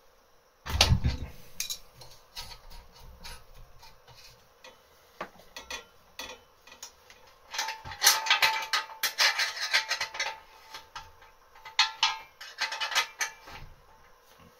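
Metal tools and pipe fittings clinking, clicking and rattling against a steel air tank as fittings are worked on by hand. There is a heavy thump about a second in, and the clinking comes thickest in the second half.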